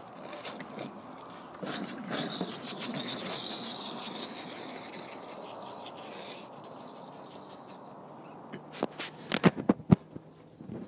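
Rustling and scraping of close movement and handling, then a quick run of about six sharp clicks or snaps near the end.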